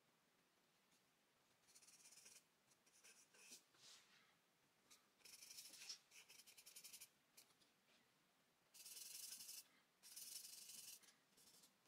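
Stick of charcoal scratching across drawing paper in several separate bursts of strokes, each lasting about a second.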